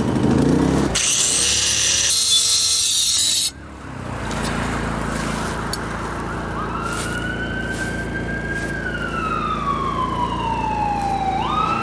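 Angle grinder with a metal cutting blade grinding at a motorcycle lock, powered by a portable generator that hums steadily underneath. The grinder's whine sags slowly in pitch as the blade bogs under load, then jumps back up twice near the end as the load eases. A loud harsh hiss fills the first few seconds and cuts off abruptly.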